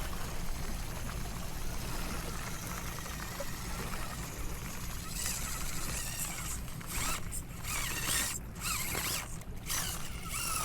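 Micro RC crawler's small electric motor and gears whining as it crawls over rocks, the whine rising and falling with the throttle, over a steady low rumble.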